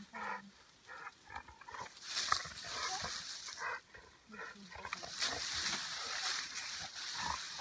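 American bulldog grunting and snuffling in short bursts as it bites and tugs at a leafy branch, the twigs and leaves rustling and shaking hard in two spells.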